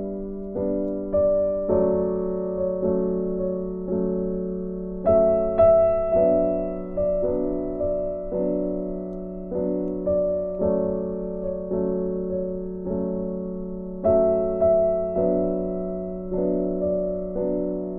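Gentle background piano music: single notes struck at an even, unhurried pace, each ringing and fading, with a brighter accented note about five seconds in and again near the end.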